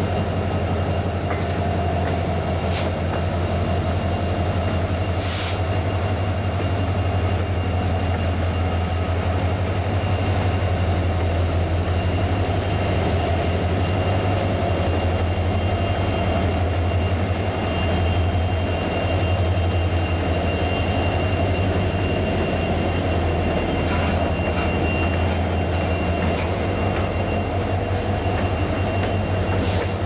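Norfolk Southern freight train rolling past: the lead pair of diesel locomotives gives a steady low engine drone, then loaded flatcars roll by with a thin, steady wheel squeal. Two sharp clanks come from the cars about three and five seconds in.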